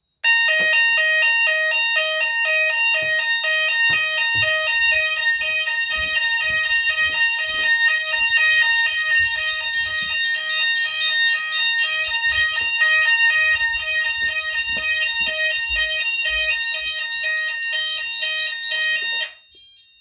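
Fire alarm sounders of a Notifier/Hochiki ESP system going off in a test activation: a loud, rapidly pulsing multi-tone alarm that starts abruptly and is cut off suddenly about a second before the end. Scattered dull knocks sound underneath.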